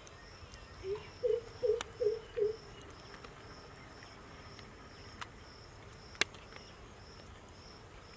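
Insect chirping steadily, about three high pulses a second, with a short run of five low notes about a second in and a few sharp clicks, the loudest about six seconds in.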